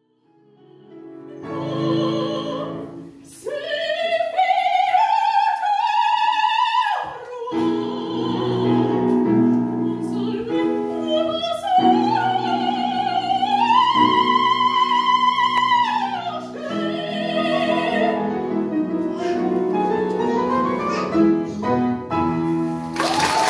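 A woman singing an operatic classical song in a trained soprano voice with vibrato, holding long high notes over sustained piano chords. Applause breaks out right at the end.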